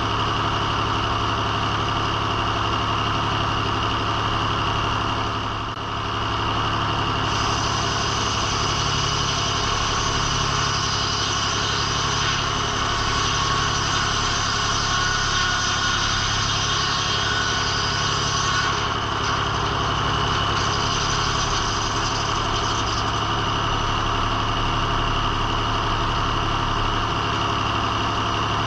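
Engine-driven circle sawmill running steadily. A higher-pitched whine joins for about ten seconds in the middle.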